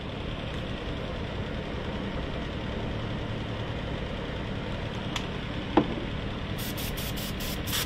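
Twin-tank Campbell Hausfeld air compressor running steadily. A sharp click comes about six seconds in, and near the end the airbrush gives several short hissing bursts of spray.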